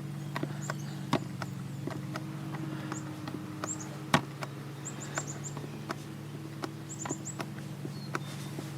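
Small hand pump clicking irregularly with each stroke as gear oil is pumped into an outboard motor's lower gear case, one louder click about four seconds in. Groups of short, high chirps come every second or so over a steady low hum.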